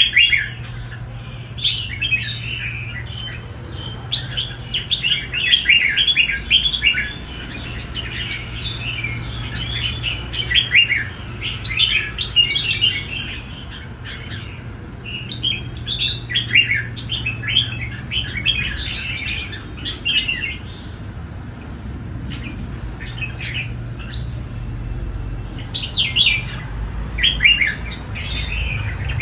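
Caged red-whiskered bulbul singing in quick runs of bright chirping phrases, with a short lull past the middle, over a steady low hum.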